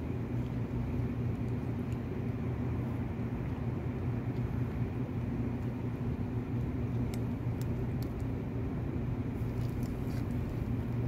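A steady low mechanical hum, like a motor or engine running without a break. A few faint ticks come in the second half.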